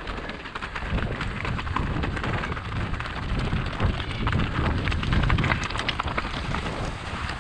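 Mountain bike rolling fast over loose rocky scree: a dense crackle of tyres crunching over small stones and the bike rattling, over a low rumble.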